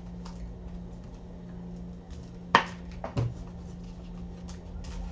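Trading cards and packs being handled at a desk: faint rustles and light ticks over a steady low hum, with two sharp clicks about half a second apart midway.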